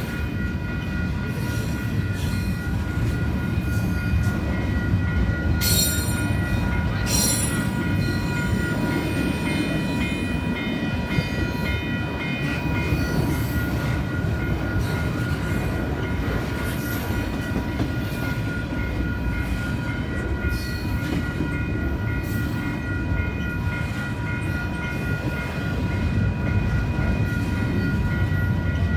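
CPKC 149, a double-stack intermodal freight train of loaded container well cars, rolling past: a steady rumble of wheels on rail, with several steady high tones ringing above it and two sharp clicks about six and seven seconds in.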